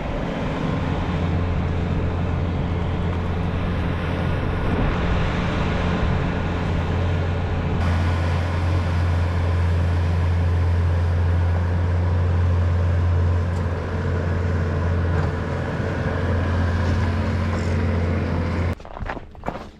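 Engine of a farm machine running steadily at a constant speed, then shutting off abruptly near the end.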